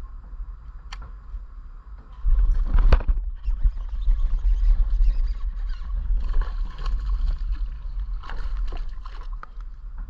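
A largemouth bass striking a topwater frog lure, a sudden loud splash about two seconds in, followed by continued splashing and low rumbling noise as the hooked fish thrashes at the surface.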